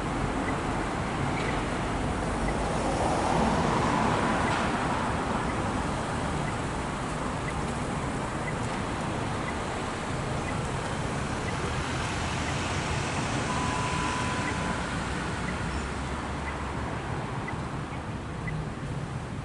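Steady city road traffic, swelling as a vehicle passes about three to four seconds in. A faint regular tick about twice a second runs underneath, and a short high beep sounds about two-thirds of the way through.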